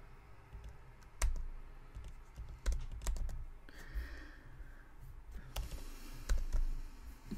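Computer keyboard and mouse clicks, a few irregular taps spread a second or so apart, with a brief soft breath-like hiss about four seconds in.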